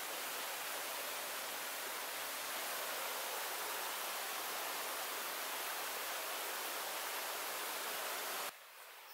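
Steady rushing of a shallow stream flowing over stones, which cuts off abruptly near the end.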